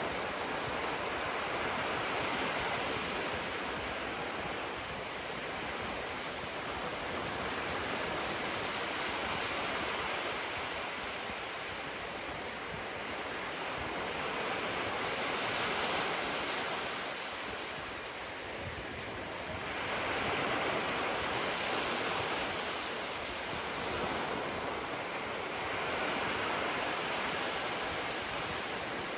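Small waves breaking gently on a beach shore, a continuous wash of surf that swells and eases every few seconds.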